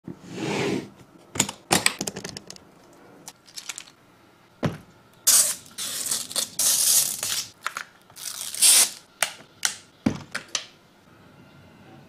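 Handling of a boxed keyboard: a few sharp clicks and knocks, then about four seconds of clear plastic wrapping crinkling as it is pulled about over the keyboard, and a few more clicks near the end.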